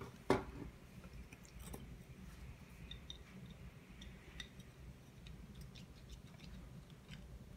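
Faint clicking and crackling of thin clear plastic parts being handled and turned in the fingers, with one sharper click just after the start.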